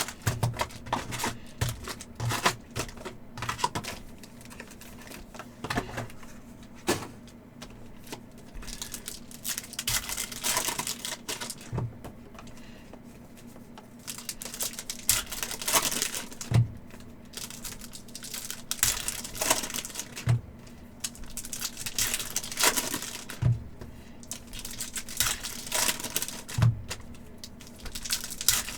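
Irregular runs of light clicks and taps with short rustles, over a faint steady hum.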